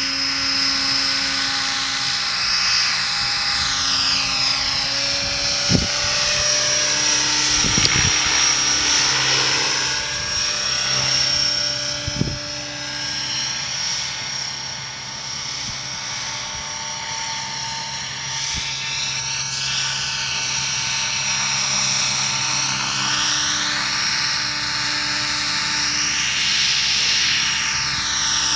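Large nitro-engined RC trick helicopter in flight: a steady high engine whine and rotor buzz whose pitch sweeps up and down as it moves about. A few brief knocks in the first half.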